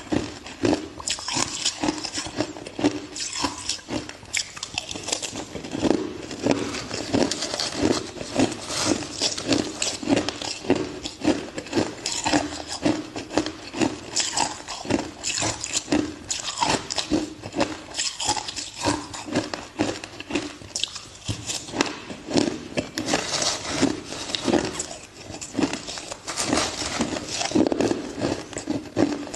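A person biting and chewing ice: an unbroken run of crisp crunches, several a second.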